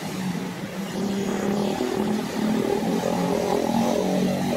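An engine running steadily with a low hum, growing louder about a second in.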